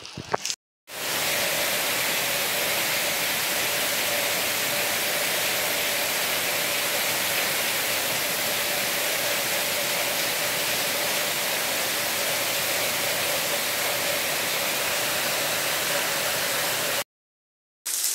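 Heavy rain pouring down as a loud, even hiss with a faint steady hum under it. It starts after a short silence and stops abruptly near the end.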